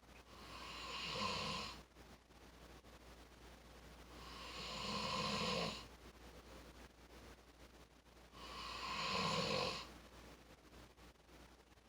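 A sleeping person snoring: three long snores about four seconds apart, each building up and then cutting off.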